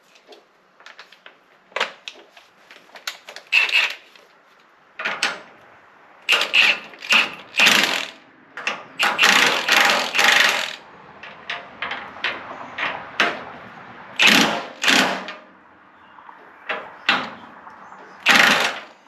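Cordless Milwaukee impact wrench hammering in repeated short bursts, the longest nearly two seconds near the middle, as it runs the nuts down on a rear leaf-spring shackle.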